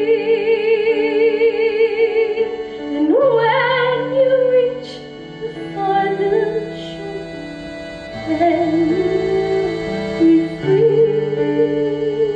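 Female voice singing long held notes with vibrato over a steady instrumental accompaniment, with an upward swoop into a new note about three seconds in.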